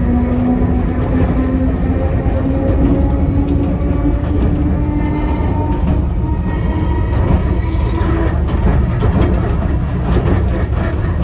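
Enoshima Electric Railway train heard from the driver's cab as it accelerates: the traction motors' whine slowly rises in pitch over a steady rumble of wheels on the rails.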